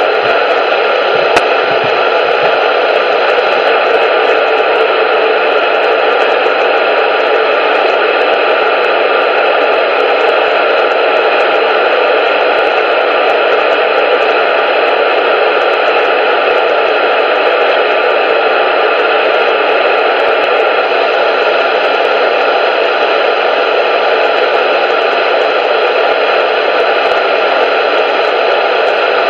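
Loud, steady static hiss, like an untuned radio, unchanging throughout.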